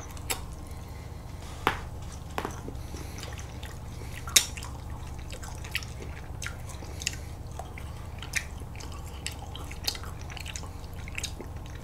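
Faint wet mouth clicks and smacks from licking and biting frozen red-bean ice cream bars, a scattering of short sharp ticks, two of them a little louder, over a steady low hum.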